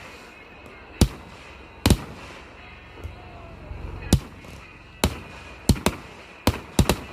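Consumer aerial fireworks going off: about nine sharp bangs at irregular intervals, several in quick pairs or triplets near the end.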